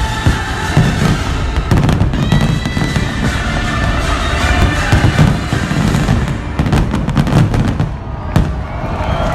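Fireworks going off: many bangs and crackling bursts in quick succession, with a brief lull about eight seconds in, over music with sustained tones.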